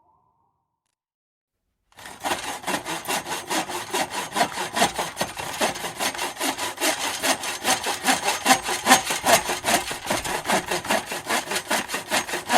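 Sawing: quick, even rasping strokes that start about two seconds in, after silence.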